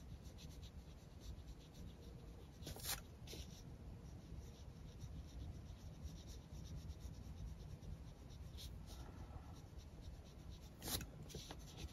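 Faint, scratchy strokes of a fine paintbrush on rough watercolour paper, many short dabs in a row, with a couple of louder strokes about three seconds in and near the end.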